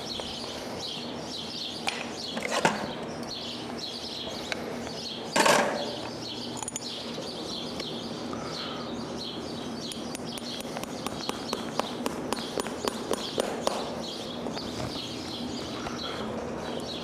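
Farrier's hammer driving a horseshoe nail through a polyurethane shoe into a horse's hoof wall: one heavier knock about five seconds in, then a run of light, quick taps about ten seconds in. Small birds chirp throughout.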